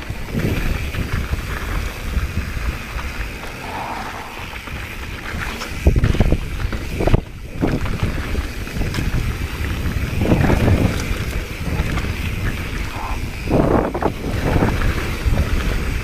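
Wind buffeting an action-camera microphone on a mountain bike riding down a dirt singletrack. Tyres rumble over dirt and stones, and the bike rattles through heavier jolts now and then.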